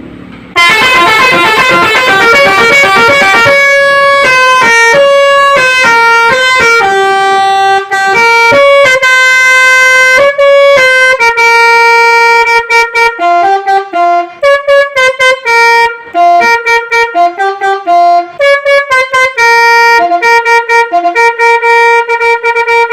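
Basuri musical air horn with silver Chinese trumpets, driven by an MS6 tone module, playing a melody of many changing notes. From about halfway through, the notes come in quick choppy stabs with short gaps between them.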